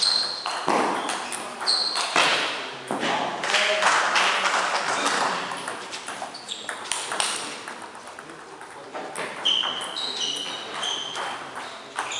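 Table tennis ball being struck back and forth over the table, heard as short, clear pings, with a quick run of about five, roughly two a second, near the end. A louder stretch of noise and voices in the hall comes between about two and five seconds in.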